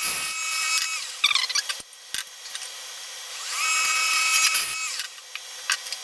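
Wood lathe turning a small African walnut blank between cuts, its steady high whine falling away about a second in and rising again for about a second near four seconds. Scattered sharp clicks and taps of tools or the tool rest come in between.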